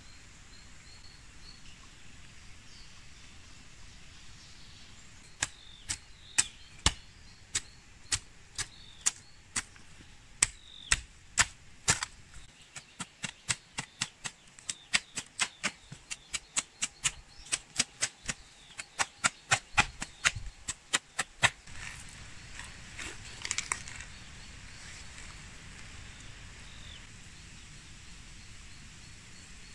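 A series of sharp chopping strikes from a hand tool, each blow short and separate. They come irregularly at first, then quicken to about two a second before stopping about two-thirds of the way through.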